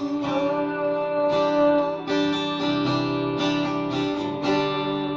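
Guitar strumming chords in a steady rhythm, the chord changing every second or so.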